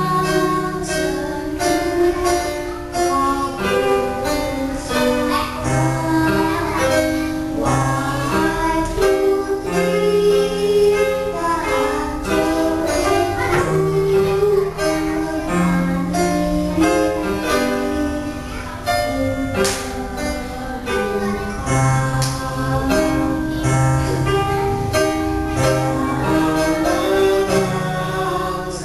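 Young girl singing solo into a microphone over an electronic keyboard's accompaniment: a rhythm backing with a steady beat, plucked-guitar-style chords and a bass line.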